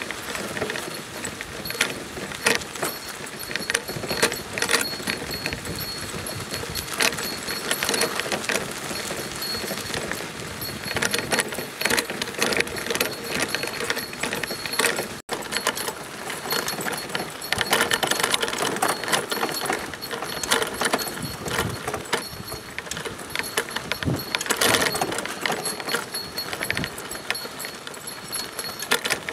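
Metal Sacco dog cart rattling and jangling as it rolls over a sandy gravel road behind a pulling dog, with a constant clatter of small clicks and wheel crunch. It breaks off for a moment about halfway through.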